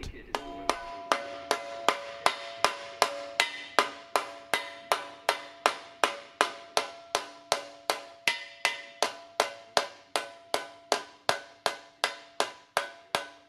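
Ball-peen hammer striking sheet metal held over the edge of an anvil, a steady run of about three blows a second, each with a ringing metallic tone: a bead being hammered into the wheel-arch edge of a car fender panel.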